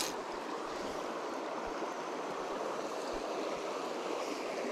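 Shallow, stony river running over rocks: a steady, even rush of flowing water.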